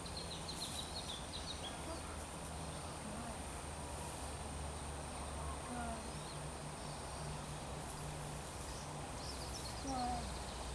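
Outdoor ambience: a steady high insect drone over a low hum, with a bird chirping in short rapid notes about half a second in and again near the end.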